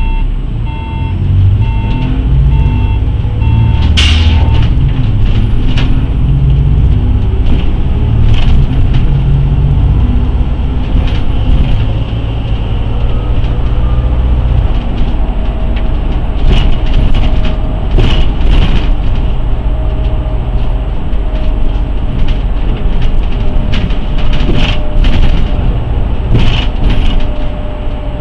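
City bus heard from inside as it pulls away: a warning beeper sounds about twice a second for the first few seconds and stops with a sharp clack, then the engine note rises as the bus gathers speed and settles into a steady run. Short rattles and knocks from the bodywork come and go throughout.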